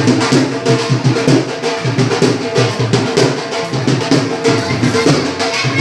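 Music with a fast, steady drum beat, loud and dense, over a few held low tones.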